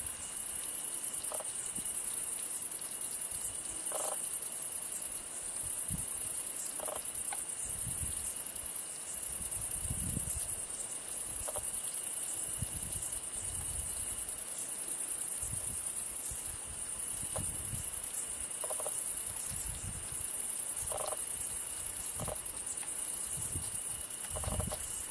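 Two hedgehogs eating chunks of wet food from a dish, with irregular soft smacking and chewing sounds, over a steady, high-pitched chirring of crickets.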